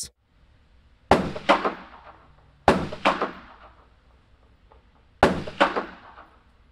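Gunshots recorded close up on an EV 635 N/D-B dynamic microphone at +41 dB gain with the limiter on. Three times, two sharp cracks come about half a second apart, each pair trailing off over about a second.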